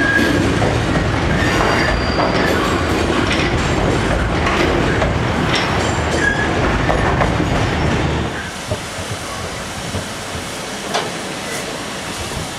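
Freightliner coal hopper wagons rolling past: a heavy wheel rumble with clicks over the rail joints and brief high flange squeals. About eight seconds in it drops to a quieter background.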